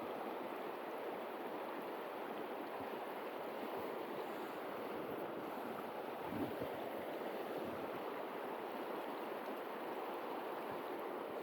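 Steady rush of flowing river water, with a brief low thump about halfway through.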